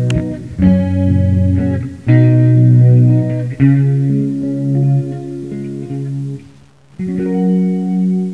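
Background music: a run of held chords that change every second or so, dipping briefly near the end before a final chord sounds.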